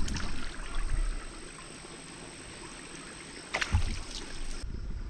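Shallow rice-paddy water sloshing as people wade through it, then a sudden splash about three and a half seconds in.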